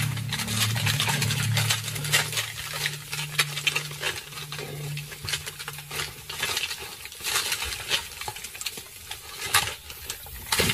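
Leopard's claws scraping and scratching on tree bark as it climbs the trunk hauling its kill: a rapid, irregular run of scratchy clicks. A low steady drone underneath stops about six seconds in.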